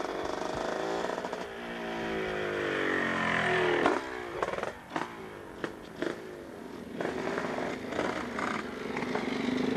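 Two-stroke racing motorcycle revving hard as it accelerates up the road, its note climbing in pitch and cutting off sharply about four seconds in. A few sharp clicks follow, then a quieter, steadier engine sound.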